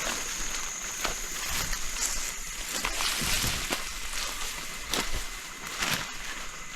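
Footsteps pushing through bush undergrowth: irregular crunches, snaps of twigs and rustling of leaves, with a steady high-pitched whine in the background that stops about two seconds in.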